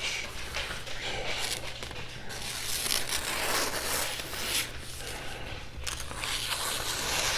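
A carbon-steel kitchen knife blade (a Shigefusa kasumi in Swedish carbon steel) scraping back and forth across a wet whetstone in repeated sharpening strokes.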